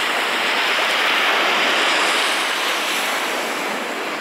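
Surf washing onto a sandy beach: a steady hiss of small breaking waves that swells a little a second or two in and then slowly eases.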